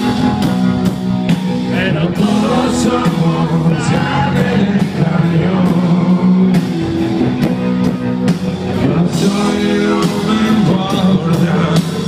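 A rock band playing live with singing over it, recorded on a phone from the audience.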